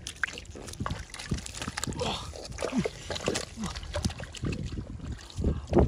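Water sloshing and splashing in quick, irregular strokes, as hands work in the water while fishing by hand.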